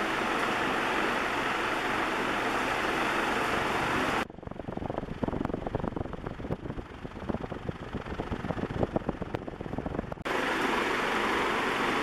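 1979 Banvil Gold Line ceiling fan with three curved metal blades running with a steady whir of motor and moving air. About four seconds in, the sound switches abruptly to a rough, gusty crackling rumble, the fan's downdraft buffeting the microphone close under the motor. About six seconds later it switches back just as abruptly to the steady whir.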